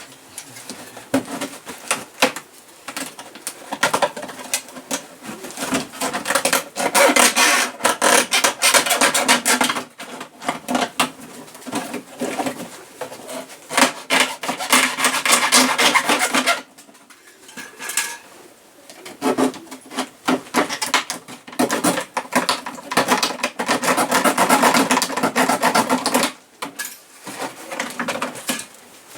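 A blade sawing through the plastic of a used water container in bouts of rapid back-and-forth strokes, with short pauses between them.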